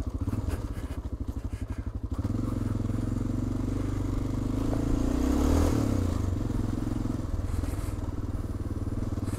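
Single-cylinder four-stroke engine of a Honda Dominator NX650 motorcycle running under way on a rough dirt track, with a fast pulsing beat. It dips briefly about two seconds in and swells louder around the middle.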